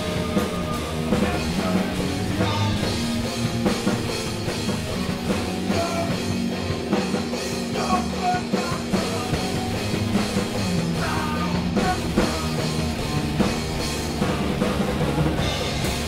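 Rock band improvising live: electric guitar over a steadily played drum kit.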